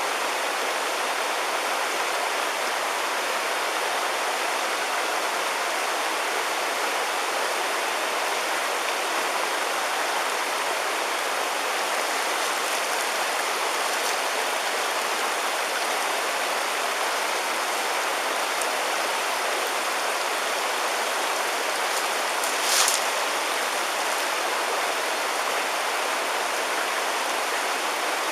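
River water rushing steadily, an even noise with no change in level. About 23 seconds in, a brief sharper noise rises over it.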